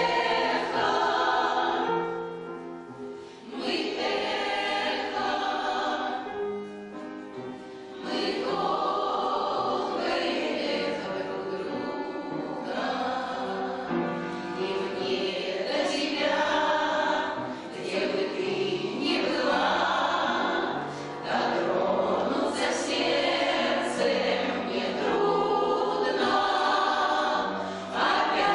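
Amateur choir of older singers, a veterans' choir, singing a song in phrases, with two softer passages early on.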